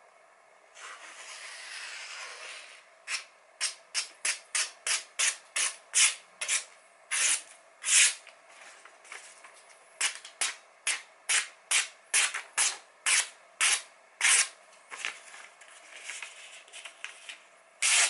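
KAI kitchen knife blade slicing through a printed catalog page: a paper test of the freshly sharpened edge. A longer hiss about a second in, then many short, quick slicing swishes, two or three a second, with a pause around nine seconds in.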